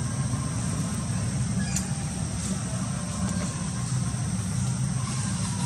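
Steady low background rumble with a constant thin high-pitched hiss above it, and one faint click about two seconds in.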